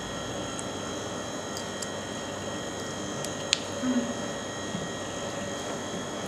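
Steady background hum with a thin, constant high whine, and a single sharp click about three and a half seconds in.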